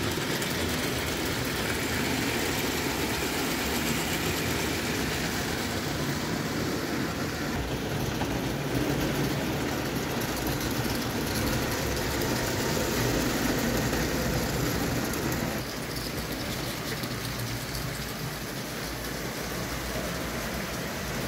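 Bing live-steam 0 gauge tinplate locomotive and its passenger cars running on tinplate track: a steady rolling rumble and clatter of wheels on the tin rails. It grows a little quieter about two-thirds of the way through.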